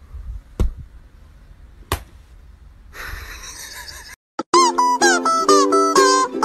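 Two sharp slaps of a hand patting a bed sheet, a little over a second apart, then a second of soft rustling. About four and a half seconds in, bright instrumental music with a steady beat starts and is the loudest sound.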